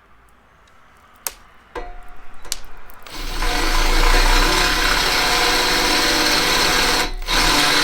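Electric drill with a 23/64 in bit drilling out a hole in a truck bumper for a 1/4-20 rivet nut. It starts with a few short bursts, runs steadily, stops briefly near the end and starts again.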